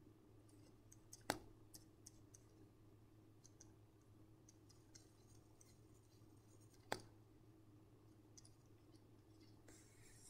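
Very faint pen writing on paper: light scratches, with two short sharp ticks, about a second in and near seven seconds in, over a faint steady hum.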